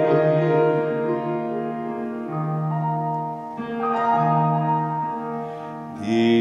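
Instrumental keyboard music playing slow, held chords as a hymn accompaniment.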